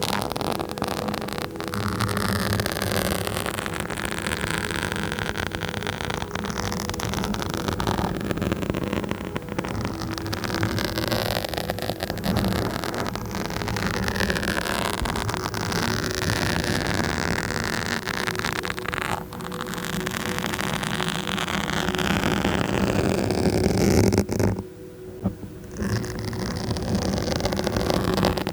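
Continuous close-up scratching and rubbing directly on a microphone, a dense scratchy noise that breaks off briefly near the end and then resumes.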